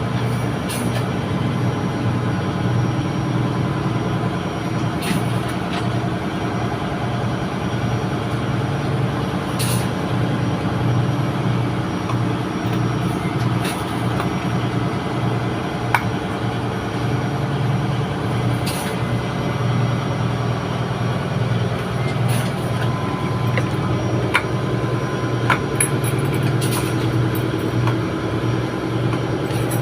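Steady drone of running ship engine-room machinery, with a slight regular pulsing, and a few light clicks scattered through it.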